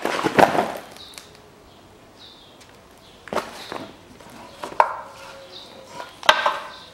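Knocks and clatter of steel parts being handled and set down on cardboard over concrete: the removed front hub and brake dust shield of a Ford Ranger. A quick run of knocks at the start, then single knocks about three, five and six seconds in.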